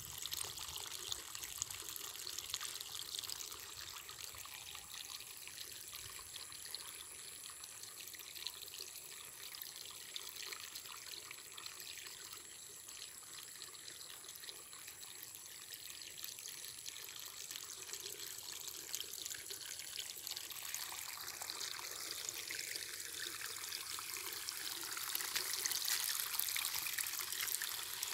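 Muddy floodwater flowing and trickling at the edge of a swollen river, a steady hiss of water, with a faint high steady tone for much of the time. The water sound grows louder near the end.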